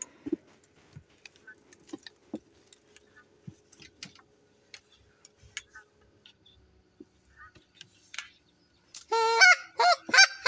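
Faint scattered clicks and rustles, then near the end a fast run of loud Canada goose honks.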